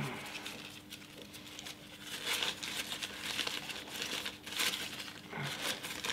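Old paper wrapping crinkling and rustling in irregular bursts as hands unwrap a small rifle-kit oil bottle.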